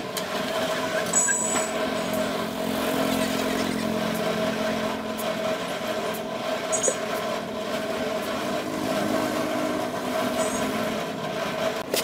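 A small engine running steadily at one even pitch, with a constant hum and a few faint light ticks over it.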